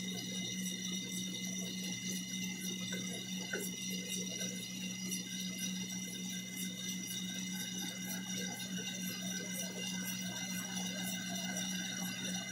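Metal lathe running steadily while a centre drill in the chuck bores into a spinning off-centre casting: a steady hum with a high whine over it, and a fast, regular ticking.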